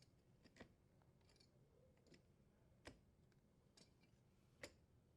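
Near silence with three faint, sharp clicks spaced a second or two apart.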